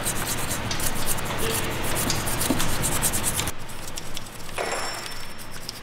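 Small hand brush scrubbing oily grime off the outside of a used BMW engine block: a fast run of scratchy back-and-forth strokes that eases off briefly about three and a half seconds in, then picks up again.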